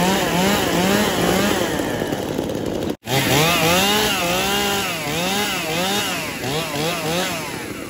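Stihl two-stroke chainsaws being revved in quick throttle blips, the engine note rising and falling about twice a second. About three seconds in, the sound cuts abruptly to a second Stihl saw, revved with longer sweeps, which settles back toward idle near the end.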